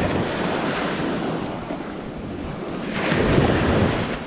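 Wind rushing over the microphone together with the wash of sea water, swelling louder about three seconds in.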